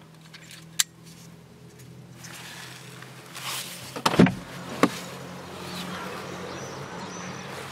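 Car's driver door opened from inside: the inside handle is pulled and the latch releases with a loud clunk about four seconds in, followed by a lighter click. A single sharp click comes near the start.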